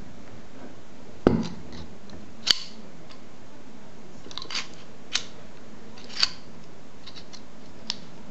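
Homemade bolt-action rifle receiver being handled and worked: about six sharp metallic clicks and clacks of its bolt and parts, the loudest a heavier clack a little over a second in, over a steady hiss.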